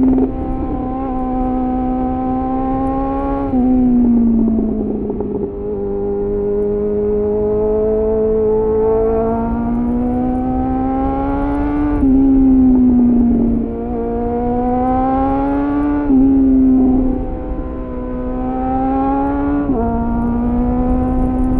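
2001 Suzuki GSF 600 Bandit's inline-four engine through an aftermarket slip-on exhaust with a homemade dB-killer, heard from the bike while it is ridden through tight bends. The engine note rises slowly under throttle and falls back, with a few sudden jumps in pitch and loudness.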